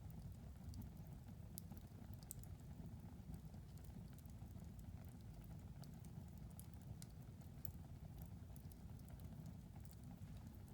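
Wood fire crackling in a fireplace: scattered sharp pops and crackles over a steady low rumble of the flames, all faint.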